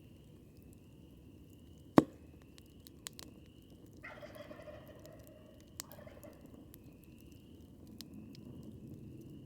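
A wild turkey gobbles once, a rapid rattling call lasting about two seconds, a few seconds in. A campfire crackles throughout, with a sharp pop about two seconds in that is the loudest sound. A faint high chirp repeats about once a second.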